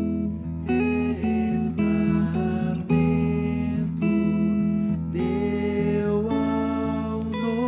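Slow devotional music led by acoustic guitar: held chords that change about once a second over steady low notes, with no singing.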